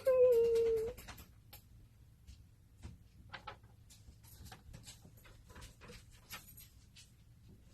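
A drawn-out, high whine that drops slightly in pitch and stops about a second in, followed by quiet rustling and small clicks of paper and packaging being handled.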